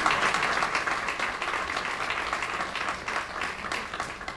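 Audience applauding, the clapping gradually dying away.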